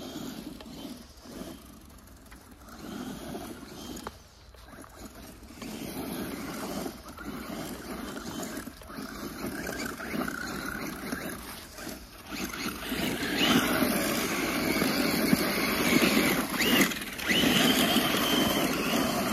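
Radio-controlled car driving: a noisy rush of motor and tyres that grows steadily louder, with a high whine in the last few seconds.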